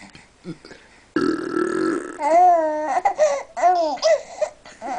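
A loud burping noise about a second in, then a baby laughing in a run of rising and falling squeals.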